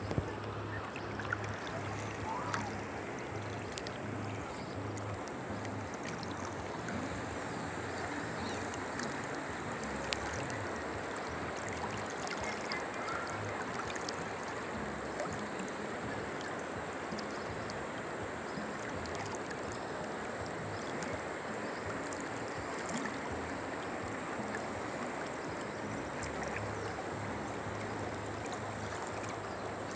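Steady rushing of a wide, fast-flowing river, with a thin steady high tone above it and a few sharp clicks, the loudest about ten seconds in.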